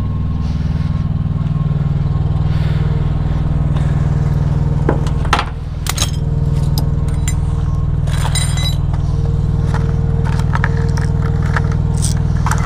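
Steady low hum of an idling engine, with metal clanks and clinks from about the middle on as a trailer's side toolbox is opened and the hand tools inside it are moved about.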